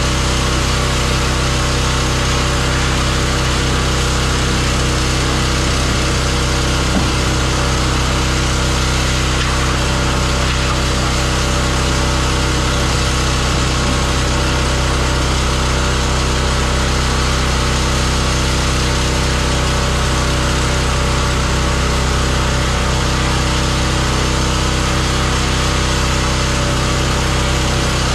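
Pressure washer running steadily: its engine drones without change, under a constant hiss.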